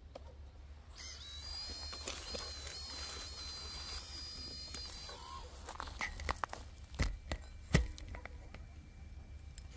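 Electric motors of an RC model Volvo excavator whining at a high pitch for about four seconds as the boom and bucket move, then two sharp knocks about a second apart. The whine starts again at the very end.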